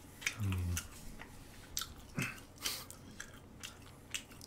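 Close-miked chewing: soft wet mouth clicks and smacks about twice a second, with a brief hummed "mm" about half a second in.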